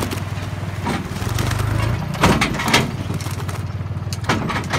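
New Holland tractor engine running steadily while working the hydraulic tipper of a trailer unloading manure, rising briefly about a second in. A few short knocks come near the middle and near the end.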